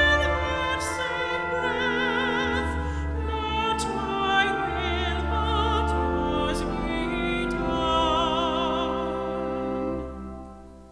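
Classical singing with strong vibrato on long held notes over a sustained low accompaniment, fading out near the end.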